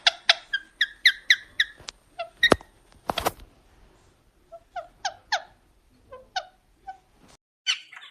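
Pet parrot giving a quick run of short, sharp squeaky calls, then a single click and a brief noisy burst about three seconds in, followed by a few more spaced squeaks.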